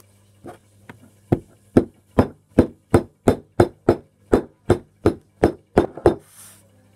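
A hand thumping on a tabletop, about fourteen sharp thumps in a steady rhythm a little under three a second, soft at first and then louder.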